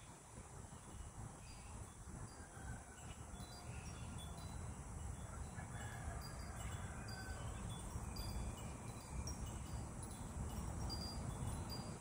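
Farm yard ambience: chickens calling faintly, with short high chirps scattered through, over a low steady rumble.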